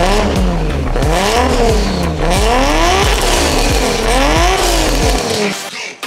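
Turbocharged RB25DET Neo straight-six engine of a Nissan Stagea being revved up and down several times. The revs climb and fall in long sweeps, heard from the exhaust, and the sound drops away near the end.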